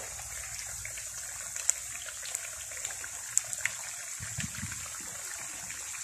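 Battered eggplant slices (beguni) deep-frying in hot oil: a steady sizzle with scattered sharp pops and crackles.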